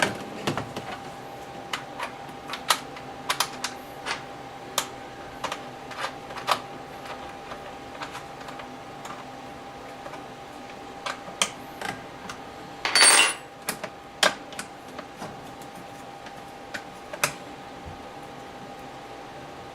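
Scattered light clicks and taps of gun vise parts being handled and fitted together by hand during assembly, with a brief louder rattle about 13 seconds in. A faint steady hum runs underneath.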